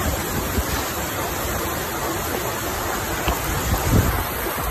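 Heavy rain pouring down in a storm, a steady rushing hiss, with low rumbles of wind buffeting the microphone.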